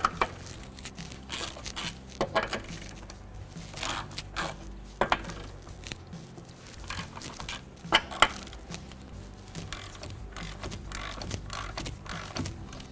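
A 22 mm socket and breaker bar on a car's wheel lug nuts. There are sharp metallic cracks and clinks a few seconds apart as each nut is snapped loose, the loudest right at the start and about eight seconds in, with light scraping of the socket between them.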